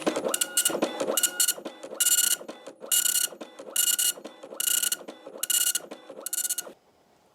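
Dot matrix printer printing: the print head buzzes across in repeated passes about once a second, then stops shortly before the end.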